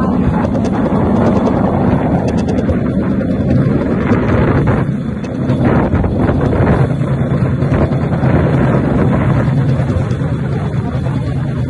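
Small engine running steadily while riding in an open vehicle, with wind buffeting the microphone.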